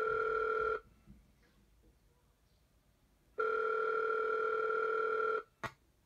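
Ringing tone from a rotary telephone prop's off-hook handset: a steady buzzy tone that stops about a second in and sounds again for about two seconds, the number just dialled ringing through. A short click near the end.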